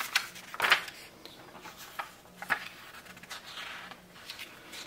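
Glossy magazine pages being turned and smoothed flat by hand: a few soft paper swishes, the loudest just under a second in.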